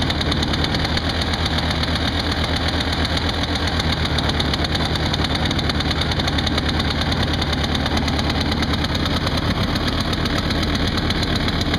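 1991 Polaris Trail Boss 350L's 350cc liquid-cooled two-stroke engine running at a steady idle just after a cold start, warming up. The firing pulses stay even, with no revving.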